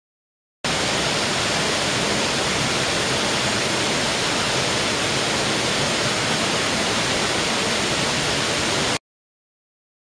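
Norimasa Ōtaki, a 21 m waterfall, with water falling onto rocks in a steady, even rush that cuts in abruptly just after the start and cuts off sharply about a second before the end.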